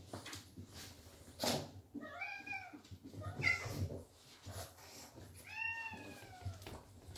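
A cat meowing: an arching meow about two seconds in, a short one about a second later, and a longer one near six seconds. There is a sharp knock about a second and a half in.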